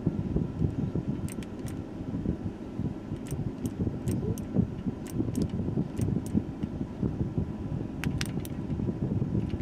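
Steady rush of a 2004 Chevy Silverado's AC blower pushing air through the dash vents while the truck runs, with a scattering of light clicks.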